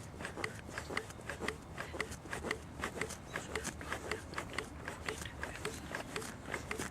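Chest compressions during CPR: a short rubbing sound with each push, in a steady rhythm of about two a second.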